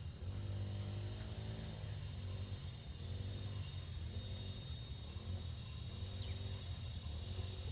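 Insects chirring steadily in high, unbroken tones, over a low pitched sound that rises and falls in pitch about once a second.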